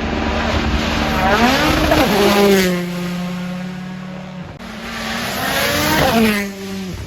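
Two Rally1 rally cars with turbocharged four-cylinder engines pass at full speed, one after the other, engines at high revs. Each car's pitch drops sharply as it goes by, the first about two seconds in and the second about six seconds in.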